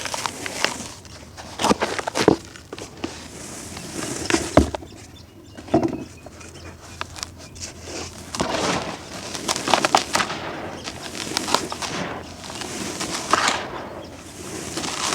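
Brittle chunks of crumbly concrete-like material being crushed and breaking apart, in crisp crackling crunches that come in irregular bursts every second or two.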